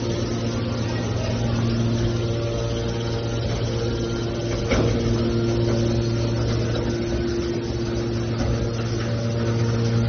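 Hydraulic power unit of a metal scrap baler running, a steady low hum from its electric motor and pump, with one short knock about five seconds in.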